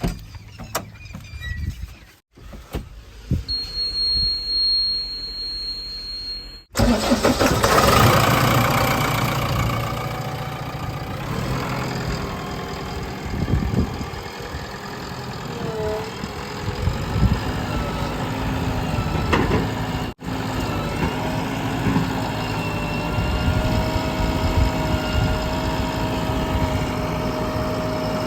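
JCB 3DX backhoe loader's diesel engine working, its note rising and falling, broken by abrupt cuts about 2, 7 and 20 seconds in. A high steady whine sounds from about 3 to 7 seconds in. From about 21 seconds the engine settles to a steadier hum.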